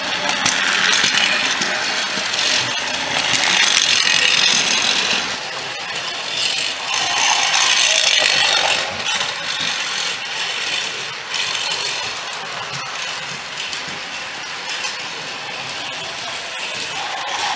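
Battery-operated Rail King GMD FX06237 toy trains running on plastic track: their small motors and gearing driving the wheels along the rails. The noise swells loud three times in the first nine seconds as engines pass close, then runs steadier and quieter.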